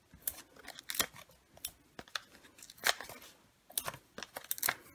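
Stampin' Dimensionals foam adhesive dots being peeled off their backing sheet and pressed onto cardstock: a run of short, sharp, irregular paper clicks and crackles.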